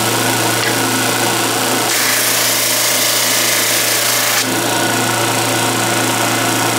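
Flatmaster drum sander's motor running with a steady hum. About two seconds in, a board is pushed across the spinning sanding cylinder, adding a rushing sanding noise for about two and a half seconds that then stops.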